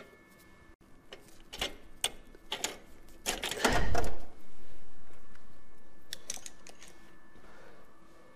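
Metal clicking and clattering of hand tools and parts while a carburetor is unbolted from an old engine: irregular clicks and knocks, then a louder clatter about halfway through.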